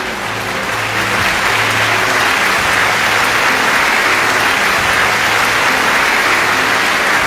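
Large audience applauding in a concert hall, swelling a little in the first second or two. Faint sustained low orchestral notes sound underneath.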